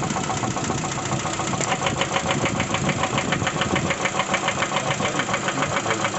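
Lada Vesta 1.6 four-cylinder petrol engine idling with a rapid, even knock, which stands out more sharply from about two seconds in. The owner traces the knock to the second cylinder.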